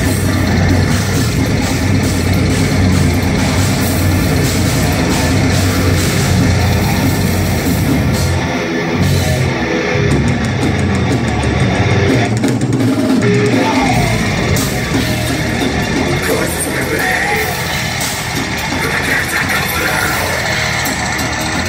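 Live metal band playing loud, with electric guitars, bass and a drum kit. The deepest bass drops away for a few seconds past the middle, then comes back in.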